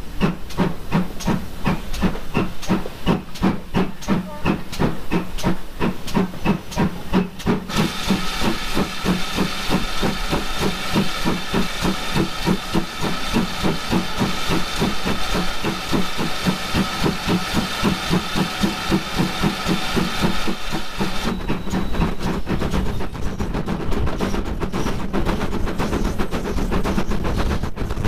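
Steam locomotive 7820 Dinmore Manor, a GWR Manor class 4-6-0, working with rapid, even exhaust beats. From about eight seconds in, a loud steady hiss of steam runs over the beats for some thirteen seconds and stops abruptly.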